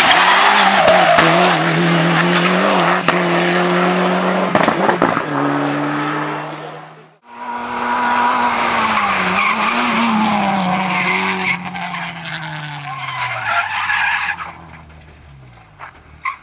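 Rally car engines under hard load with tyres skidding. The first car holds a steady high note and then drops lower about five seconds in. After an abrupt cut about seven seconds in, a second car's engine note falls steadily and fades as it draws away.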